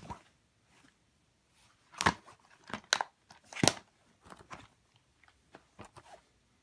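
Plastic DVD cases being handled and set down on a bed: a few sharp clicks and clacks, loudest about two to four seconds in, with fainter taps and rustling between.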